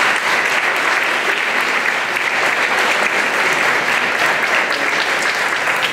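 Audience applauding steadily after a public comment.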